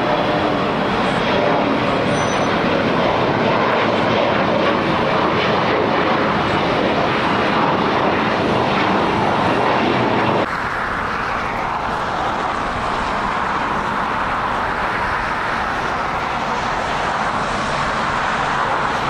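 Aircraft engine noise, a loud steady rush that drops suddenly about ten seconds in to a quieter steady rush.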